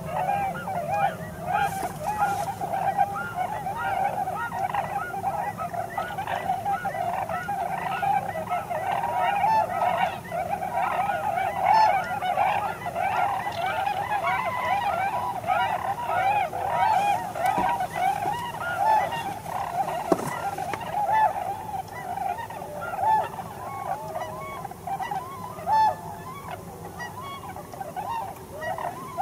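A large flock of wild geese calling continuously: a dense chorus of many overlapping honks with no break.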